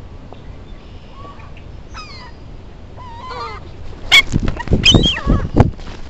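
Gulls calling, with falling cries about two and three seconds in. From about four seconds, loud knocks and thumps right at the microphone and wing flaps, as gulls crowd and peck at the camera amid more calls.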